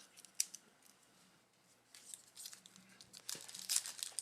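A foil trading-card pack wrapper being torn open and crinkled, with one sharp click about half a second in; the crinkling starts about two seconds in and grows louder in the last second.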